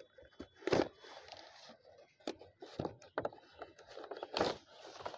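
Cardboard packaging being handled and opened: the inner cardboard tray scraping and rustling as it slides out of the outer box, with several sharp taps and knocks. The loudest come about a second in and again near the end.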